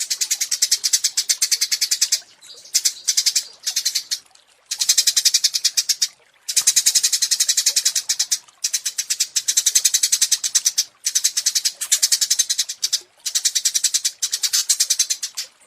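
Small songbird singing a very fast, high run of sharp repeated notes, in bursts of up to about two seconds with brief pauses between them: 'tembakan' (rapid-fire) song of the kind used to tutor caged songbirds.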